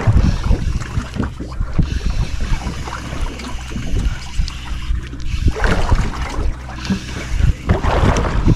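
Fishing boat's engine running steadily, with wind buffeting the microphone and scattered knocks and splashes.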